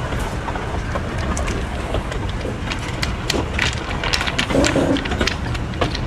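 PeruRail Andean Explorer train running along the track: a steady low rumble with frequent short clicks and rattles.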